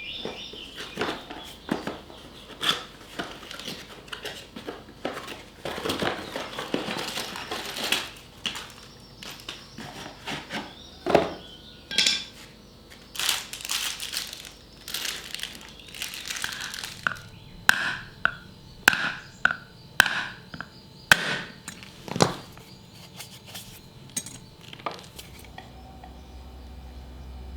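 Dishes, pots and cutlery being handled: irregular knocks and clinks, with a few short ringing tones about two thirds of the way in.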